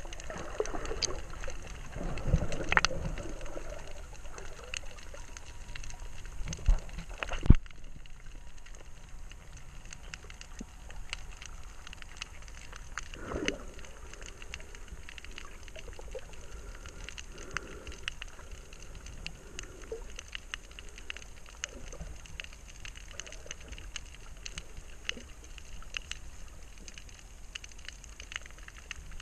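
Water gurgling and trickling, with many faint scattered clicks and a few knocks; the loudest is a sharp knock about seven and a half seconds in.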